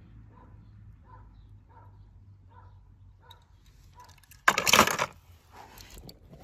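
A quiet stretch with faint, evenly spaced soft blips, then a sudden loud crash-like noise about four and a half seconds in, lasting under a second.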